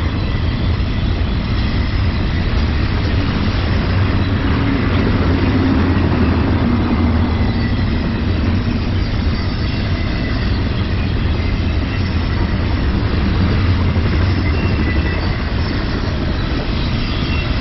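Double-stack intermodal freight cars rolling past: a steady, deep rumble of steel wheels on rail, with thin high squealing tones that come and go.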